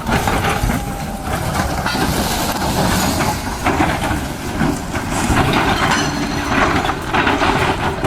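Heavy machinery working: a running engine with loud, irregular knocking and clatter.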